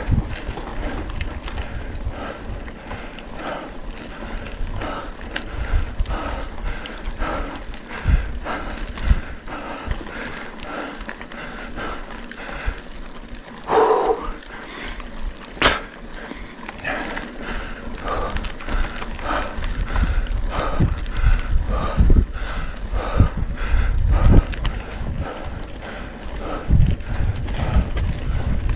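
Mountain bike riding over cracked concrete and a rough dirt track: tyres crunching, with frequent irregular knocks and rattles from the bike, including a sharper knock a little past halfway. Wind rumbles on the microphone.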